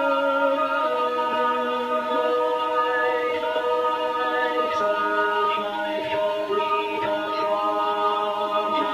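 Unaccompanied voices singing long, held chords, the harmony shifting to new notes a few times.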